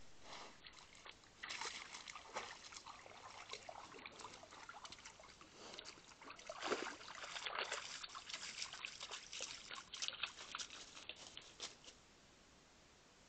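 Irregular splashing and trickling of shallow pond water, a busy run of small splashes that grows louder around the middle and stops suddenly near the end.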